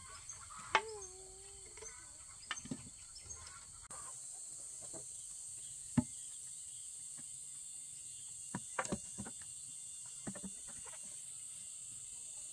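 Scattered sharp knocks of a machete on green bamboo poles, then of a bamboo post being knocked and settled upright in its hole, over a steady high drone of insects. About a second in, a short wavering call rises over the knocks.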